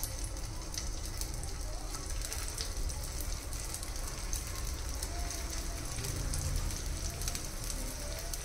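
Hot oil sizzling in a frying pan as potato cutlet patties are laid in to shallow-fry, a steady hiss full of fine crackles.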